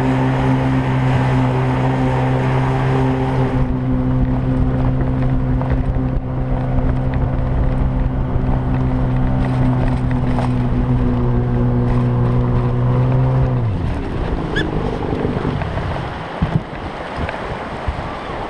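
Outboard water-jet motor on an inflatable river boat running at a steady speed over rushing water. About fourteen seconds in it winds down, its pitch dropping, and the rush of river water and wind is left.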